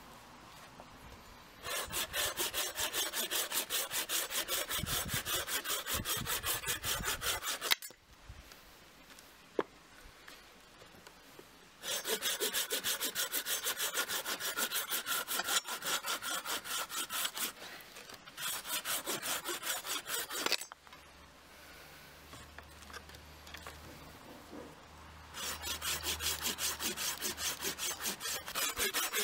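Rico RC2250 pruning saw cutting through a green walnut branch with rapid back-and-forth strokes, in several runs of sawing with short pauses between them.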